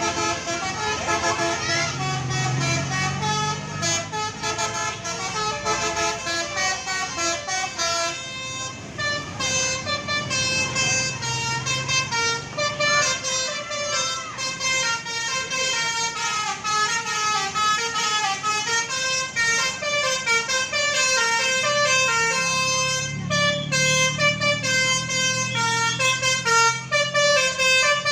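Basuri telolet horn on a bus playing a continuous tune of quickly changing notes, over a bus engine running, which swells briefly about two seconds in and again near the end.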